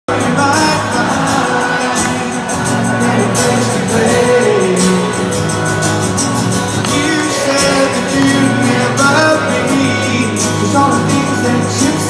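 Live rock band playing a song, a man singing over guitar and bass, heard from the audience through the venue's PA.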